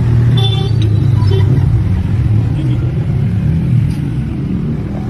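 A car running with a steady low rumble, with a few brief faint high tones in the first second or so.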